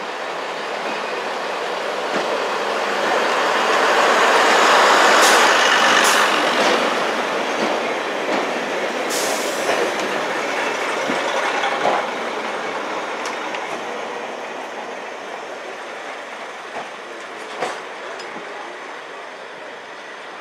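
Vintage diesel multiple unit running into the platform: engine and wheel noise grows to its loudest about five seconds in as the carriages pass close, then slowly dies away, with a few short sharp clicks along the way.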